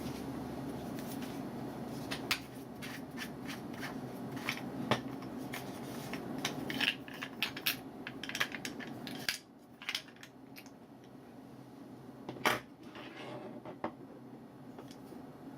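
Scattered sharp clicks and light knocks from small hard objects being handled, over a steady low hum that stops about nine seconds in; one louder knock comes near the end.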